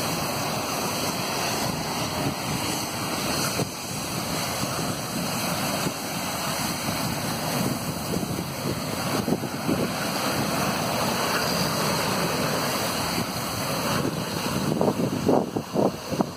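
Fire hose nozzles spraying fog-pattern water onto a burning fuel-pool fire: a loud, steady rushing hiss of spray and burning fire, with a few louder bumps near the end.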